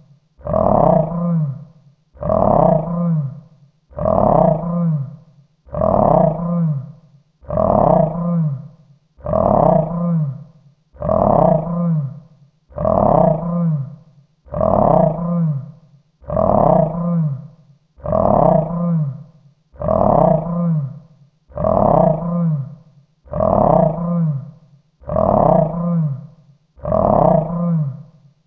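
A mythical-beast growl sound effect: one short growl repeated over and over in a loop, about one every second and three quarters. Each growl starts suddenly and dies away before the next.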